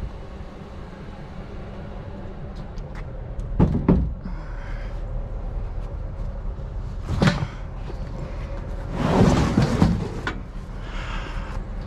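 Knocks and a rough clatter of salvaged curbside items being handled and loaded: a bang about three and a half seconds in, another about seven seconds in, and a longer scraping clatter near nine to ten seconds, over a steady low rumble.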